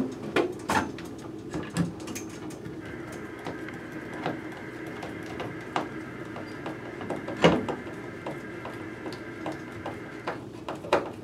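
Hand screwdriver turning a screw into a plastic drywall anchor through a coat rack: irregular small clicks and scrapes of the tip in the screw head, with one louder click about seven and a half seconds in, over a faint steady hum.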